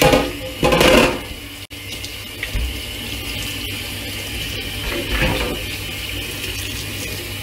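Tap water running and splashing onto a metal gas-hob pan support in a stainless steel sink as it is rinsed by hand. The water is louder in about the first second, then steady.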